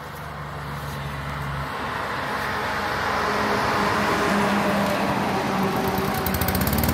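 Petrol walk-behind lawn mower engine running and being pushed across grass, growing steadily louder, with the engine pitch rising and falling near the end.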